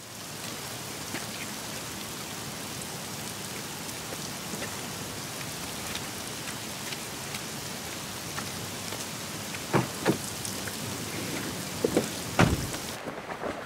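Heavy rain pouring down in a steady hiss. Near the end come a few short knocks and thumps, the last one the loudest and deepest, and then the rain turns suddenly muffled.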